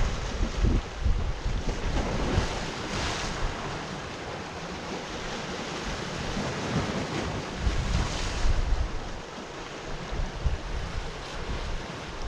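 Sea waves breaking and washing on the shore, with wind buffeting the microphone in gusts. The wash swells up about three seconds in and again about eight seconds in.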